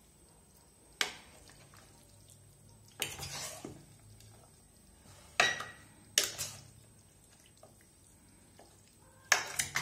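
A metal fork clinking and scraping against a ceramic bowl while raw chicken is mixed into a yogurt and black pepper marinade: a few sharp clinks a second or more apart, with a short scrape about three seconds in and a quick cluster of clinks near the end.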